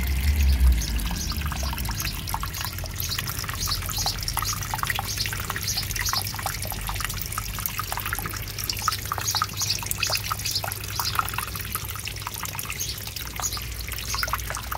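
Water from a small submersible fountain pump spraying up and splashing back into a pond: a continuous patter of droplets over a low steady hum.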